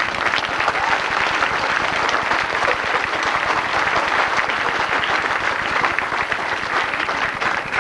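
Audience applauding: many people clapping at once in a dense, steady patter that eases slightly near the end.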